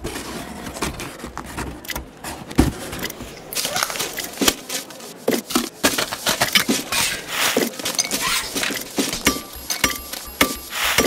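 Rapid, irregular clicks, taps and light clinks, with no steady rhythm; a steady high tone enters near the end.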